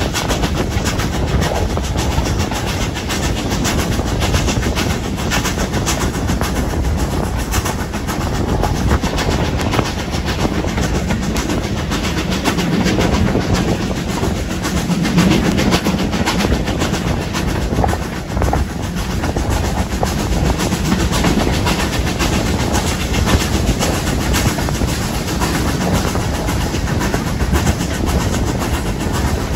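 Steam-hauled passenger train behind BR Standard Class 5 No. 73082 Camelot running along the line, heard from a carriage: steady, even rumble of wheels on rails.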